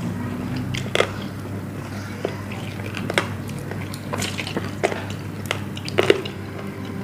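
Close-miked eating sounds: people biting and chewing grilled chicken wings, with scattered wet smacks and crunches about once or twice a second over a low steady hum.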